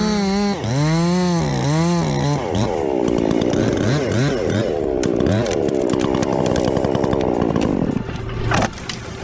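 Two-stroke chainsaw revved in quick blips, its pitch dipping and rising several times. From a couple of seconds in it is held in a cut, running lower and wavering under load, and it eases off near the end.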